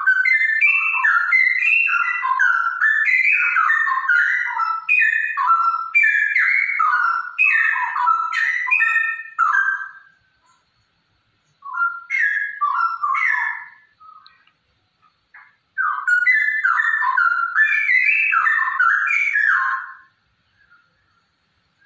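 Straw-headed bulbul, a female by the uploader's account, singing loud, rapid, bubbling whistled phrases in three bouts. The first runs about ten seconds, a short one follows after a pause, and a longer one comes a few seconds later.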